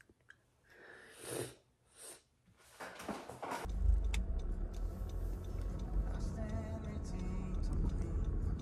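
A few short rustling swooshes, then from about three and a half seconds in a steady low rumble, with faint music under it.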